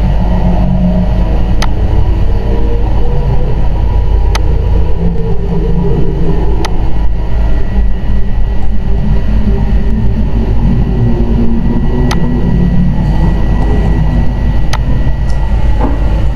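Loud, steady, low rumbling background noise with about six faint, sharp clicks spread through it.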